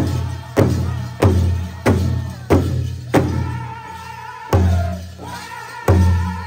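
Powwow drum group: a large drum struck in a steady beat of about one and a half strokes a second, with high-pitched singing over it. The drumbeat drops out for about a second and a half midway while the singing carries on, then comes back.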